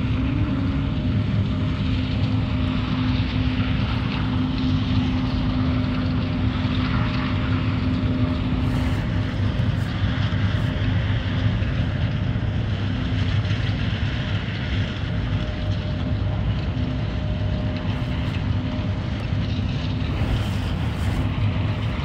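A John Deere S680 combine's engine running steadily: a constant low hum with a steady higher tone above it, and no change in speed.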